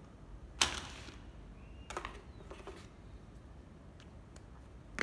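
Hard clacks from cordless drills being handled: a sharp knock a little over half a second in, softer knocks about two seconds in, and another at the very end.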